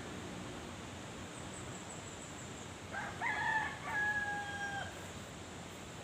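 A rooster crowing once, about three seconds in, ending on a long held note, over a steady background hiss.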